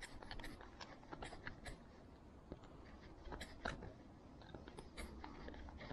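Faint, irregular clicks and ticks of a flathead screwdriver turning out the small handle screw of a Daiwa Goldcast 508RL spincast reel, with small metal-and-plastic handling sounds as the reel is turned in the fingers.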